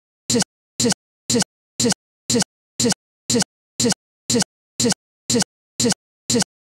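Digital stutter: the same split-second snippet of sound repeats about twice a second, with dead silence between each repeat. This is the sign of a stuck or corrupted recording looping a tiny fragment.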